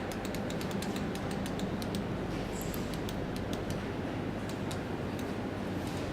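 Quick, irregular light clicks, several a second, over a steady hum and hiss; the clicks thin out near the end.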